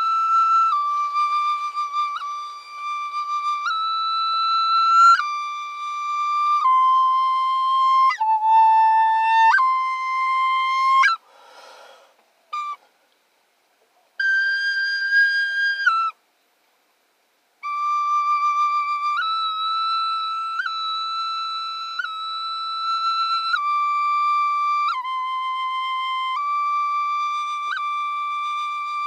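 Small flute played solo in slow, high held notes, each lasting a second or two and moving by small steps up and down. About eleven seconds in, the tone gives way to a breathy rush of air, followed by two short silences before the playing resumes.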